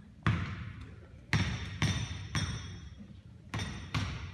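A basketball bouncing and striking hard surfaces in a gym: six sharp, echoing impacts at uneven spacing, some followed by a brief ringing tone.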